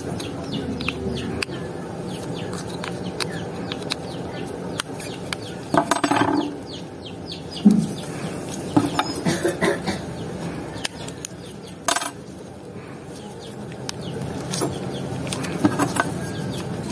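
Hand tools clicking and clinking against the metal of a small engine's oil filter housing as it is opened, with chickens clucking in the background.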